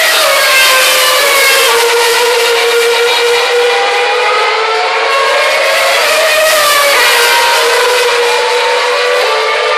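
Several 2012 Formula One cars' 2.4-litre V8 engines running at high revs out of sight, their overlapping notes rising and falling in pitch as they accelerate and lift off.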